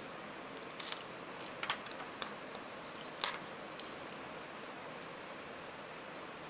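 Scattered light clicks and crinkles as hands handle a stiff plastic (OHP) sheet wrapped around a painted board, over a steady hiss. The loudest click comes a little past the middle.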